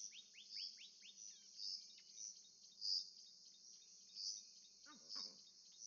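Faint outdoor ambience: a steady high insect-like chirring that pulses roughly once a second, with quick falling bird chirps and a short lower call about five seconds in.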